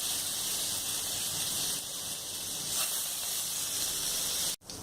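Butter sizzling as it melts in hot oil in a karai: a steady, high hiss. It cuts out abruptly for an instant near the end.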